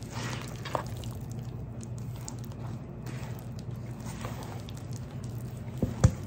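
Hands squishing and kneading wet, sticky sourdough dough in a bowl: soft squelches over a steady low hum. Two sharp knocks near the end.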